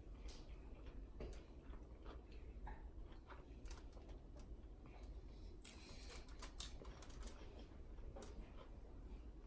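Faint, close mouth sounds of a person chewing a big bite of fried chicken sandwich: soft wet clicks and smacks, coming thicker about six to seven seconds in.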